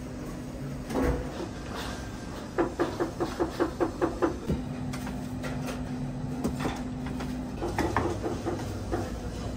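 Kitchen work sounds over a steady low hum: a single knock, then a quick run of about eight sharp knocks, five or six a second, and a few more knocks near the end.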